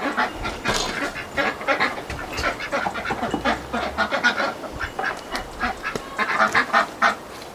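Ducks quacking: many short calls in quick, irregular succession.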